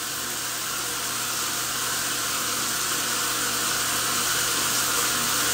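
Water spraying in a steady hiss onto a bare foot and a tiled floor, slowly growing louder.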